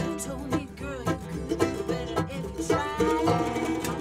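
Acoustic bluegrass-style string band playing live: rapid banjo picking over mandolin, acoustic guitar and upright bass, with sliding notes above.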